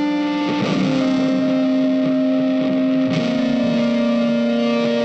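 Instrumental background music: long held notes that change pitch every second or two.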